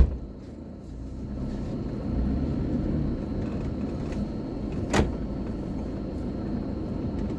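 A motor vehicle driving, a steady low rumble, with one sharp knock about five seconds in.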